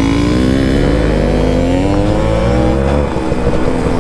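Suzuki Max 100 two-stroke single-cylinder motorcycle engine running under way on a gravel track: the revs climb for the first half second, hold, then dip briefly about three seconds in before picking up again.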